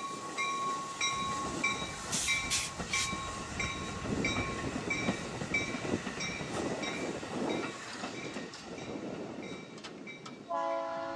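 Metra Highliner electric bilevel train rolling past, its wheels rumbling and clattering on the rails, loudest in the middle, while a bell dings steadily about twice a second. A multi-note train horn sounds near the end.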